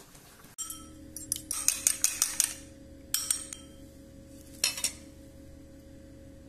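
Egg being beaten with a utensil in a glass bowl: quick runs of clinks against the glass, a fast run lasting about a second, then two shorter runs.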